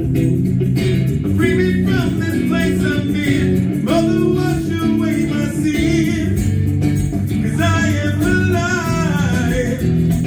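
A live rock song played on amplified electric guitar with bass, while a man sings long, wavering notes over it.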